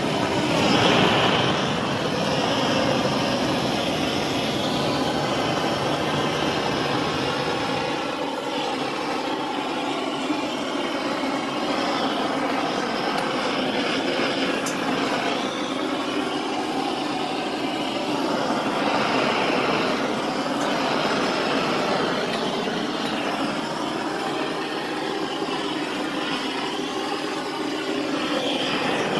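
Blowtorch flame burning with a steady hiss, used to singe loose rabbit fluff off wire-mesh cages and metal nest boxes.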